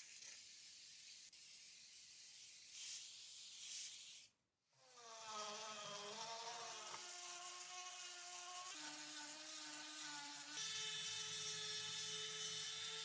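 An aerosol spray can hisses as it paints cast-iron parts, louder about three seconds in. After a short break a small electric rotary tool whines as it grinds a cast-iron plate, its pitch dropping and then jumping higher a few times as the load changes.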